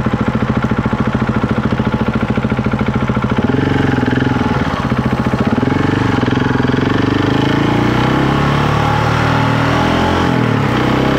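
Husqvarna 701 Enduro's single-cylinder engine running while riding: an even pulsing beat at first, then the revs rising and falling and climbing gradually, with a brief dip near the end.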